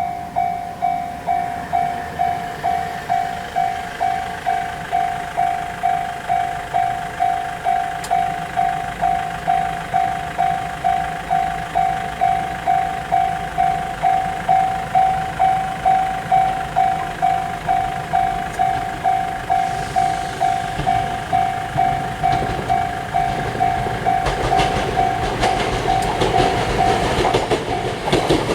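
Japanese level crossing alarm ringing its repeated electronic 'kan-kan' strike, about two strikes a second. A Toyohashi Railway Atsumi Line train approaches: its rumble grows over the last several seconds and its wheels clatter near the end, drowning the bell.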